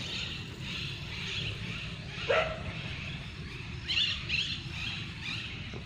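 A dog gives one short yelp that drops in pitch about two seconds in, followed by a few fainter, higher yips around four seconds, over a steady low rumble.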